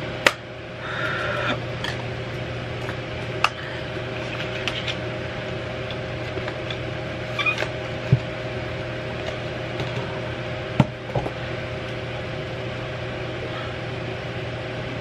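Steady mechanical hum of a running room appliance, with a few sharp clicks and taps from makeup being handled, the loudest right at the start.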